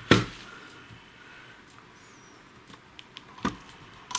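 Two sharp knocks, one just after the start and another about three and a half seconds in, with faint small ticks between.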